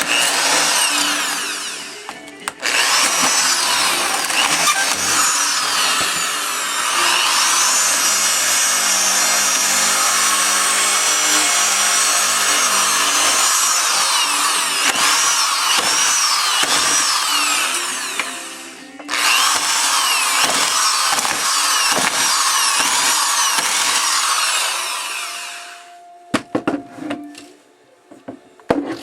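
Electric hammer drill running in long bursts against an LCD panel, its whine rising and falling in pitch as the speed changes. It stops briefly about two seconds in and again past the middle, cuts out shortly before the end, and a few sharp clicks follow.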